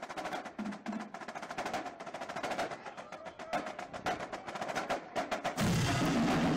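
Drumming: a quick run of sharp, crisp strokes. About five and a half seconds in, a much louder, fuller passage with deeper drums cuts in abruptly.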